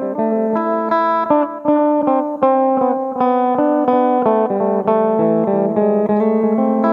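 Phin, the Isan plucked lute, played through an effect: a quick run of picked melody notes, several a second, over a sustained low drone note.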